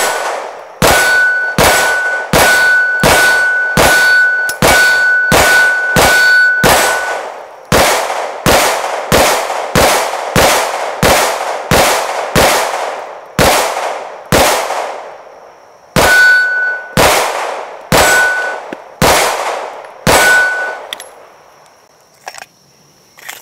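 9mm Glock 17 Gen5 pistol firing a long string of about two dozen shots, mostly about two a second and spacing out after the middle. Many hits make the steel target ring with a short, steady clang. The firing stops a couple of seconds before the end.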